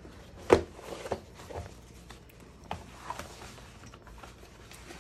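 Thick canvas apron being handled and spread out on a wooden tabletop: a sharp knock about half a second in, then soft rustling of the fabric and a few lighter knocks.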